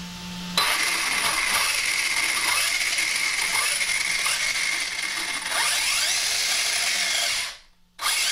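Arrma Talion 6S BLX RC truggy's brushless motor and drivetrain spinning the wheels up at high speed off the ground, a steady high whine with gear noise. It cuts off about seven and a half seconds in and spins up again near the end. The owner feels it is not quite reaching full throttle.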